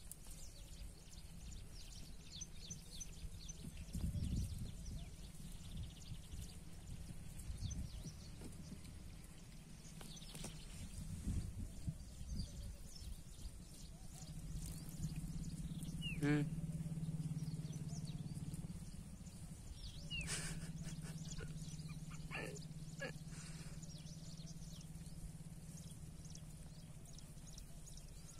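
Quiet open-air background. A low steady hum comes in about halfway through, and a few short, faint animal calls sound over it.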